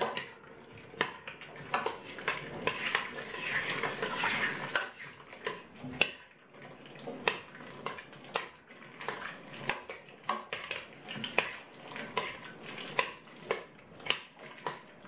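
A spoon stirring thick potato goulash in a large stainless steel pot. It clinks and scrapes against the pot's sides many times at an uneven pace, and the stew sloshes for the first few seconds.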